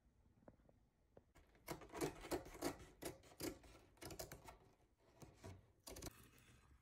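Scissors snipping through the woven backing cloth of a tufted rug: a run of sharp cuts beginning a little under two seconds in, coming in short groups with brief pauses between.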